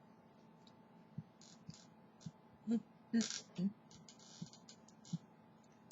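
Faint, irregular clicks and soft knocks, about eight in all, with three louder ones with a low thud close together around the middle.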